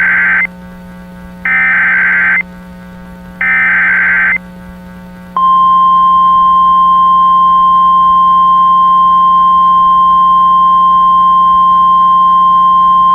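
Emergency Alert System SAME header: three short bursts of data tones, each about a second long and about a second apart. A single steady, loud attention tone starts about five seconds in and holds unbroken, signalling that a broadcast alert message follows.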